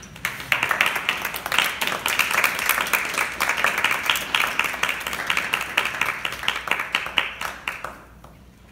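Applause: many people clapping together in a hall. It starts about half a second in and dies away near the end.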